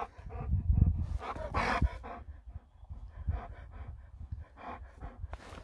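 Alaskan malamute panting with open mouth, a series of breathy huffs, the strongest about a second in.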